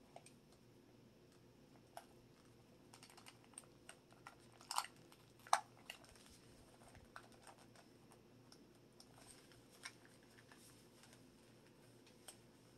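Quiet clicking and crackling of a knife working into the plastic body of a Treasure X Dino Gold dinosaur toy, cutting it open, with two louder cracks about five seconds in.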